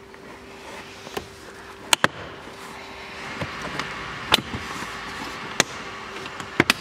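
Plastic door-sill trim panel of an Audi A4 B7 being pried off by hand, its retaining clips letting go in a series of sharp clicks and snaps, amid rustling and scraping of the plastic.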